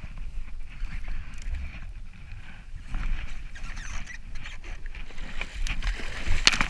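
Wind buffeting the microphone with water lapping around the jet ski. Near the end, a hooked fish thrashes at the surface beside the craft, with a few sharp splashes.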